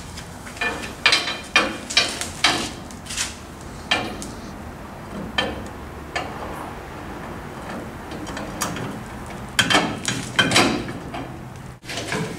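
Irregular metallic clicks and knocks of hand tools on a Chrysler 9.25 rear axle as the side bearing adjuster is turned with a long adjuster tool and wrench. The clicks come in a run over the first few seconds and again in a denser cluster near the end.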